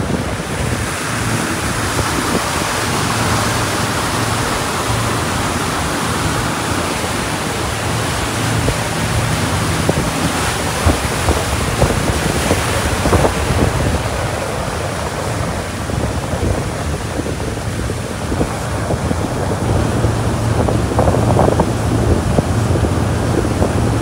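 Wind buffeting the microphone and water rushing past the hull of a Leopard catamaran under way, over a steady low engine hum.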